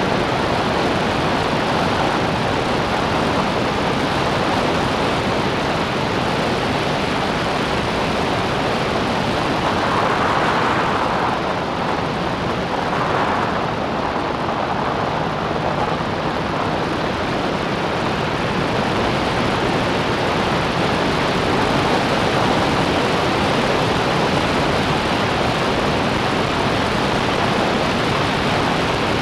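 Open-cockpit Clubman racing car at speed: a steady, loud rush of wind buffeting the onboard camera microphone, with the car's engine running underneath.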